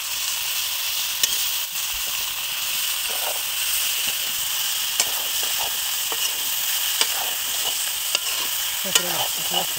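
Sliced tomatoes, onions and green chillies sizzling steadily in oil in a metal kadai while a metal spoon stirs them, with a few sharp clicks of the spoon against the pan.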